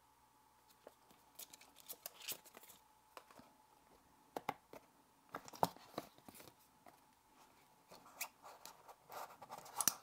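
Handling of a folded paper instruction leaflet and a small box's packaging as the clip is taken out: soft scattered rustles with light clicks and taps, busiest about halfway through and again near the end.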